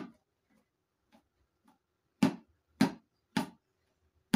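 Sharp knocks of a chemical packet being tapped against a plastic mixing basin to empty out the last of its contents: one knock at the start, then, after a pause with a couple of faint ticks, three knocks about half a second apart and one more near the end.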